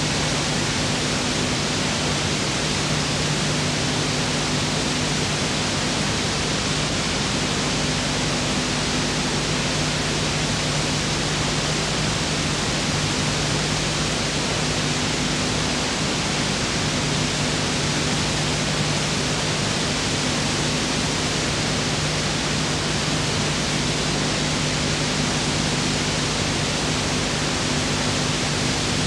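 Steady, unbroken hiss with a low hum underneath: noise from the recording and transfer chain, with no sound of the action itself.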